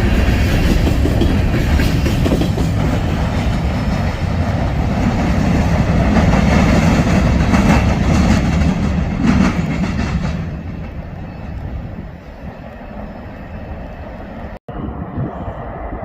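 Freight train cars rolling past close by: a loud, dense rumble with wheels clacking over the rails. It dies away after about ten seconds, and a brief cut in the sound comes near the end.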